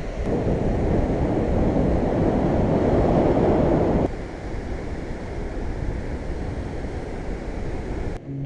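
Wind buffeting the microphone over the wash of surf breaking on an open sandy beach, a steady rushing noise that drops suddenly to a lower level about four seconds in.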